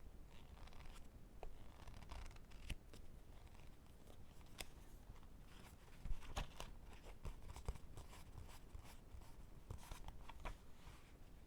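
Fingers tapping on books: soft, irregular taps with some light scratching between them, one louder tap about six seconds in.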